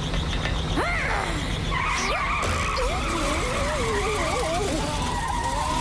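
Cartoon car tires squealing in a long, steady skid that starts about two seconds in, as the jeep speeds away. A swooping sound is heard about a second in, and wavering pitched sounds run under the squeal.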